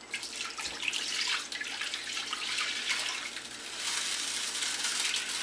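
Coconut milk pouring in a steady stream from a plastic bowl into a wide pan.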